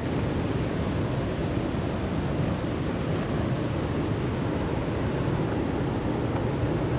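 Steady rush of falling and running water, an even noise with no breaks.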